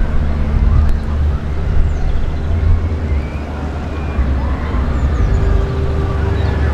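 Outdoor background: a steady low rumble with faint distant voices.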